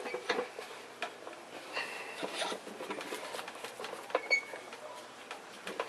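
Scattered light metallic clicks and clinks of hands and tools working on a motorcycle front fork leg clamped in a vise, with a sharper ringing clink about four seconds in.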